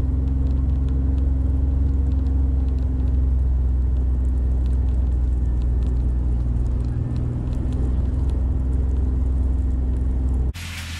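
Kawasaki Mule Pro-FXT side-by-side's three-cylinder engine running steadily while driving through snow, heard close up from a camera on the vehicle: a loud, low, even drone with faint scattered ticks. About half a second before the end it cuts to a quieter recording of the vehicle from outside.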